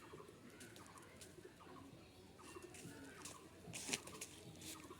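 Faint bird calls repeated about once a second, with scattered clicks and a brief louder clatter near four seconds in.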